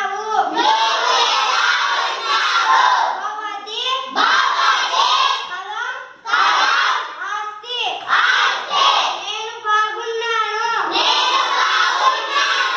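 A class of young schoolchildren reading Telugu words aloud together in chorus, in short phrases with brief pauses between them.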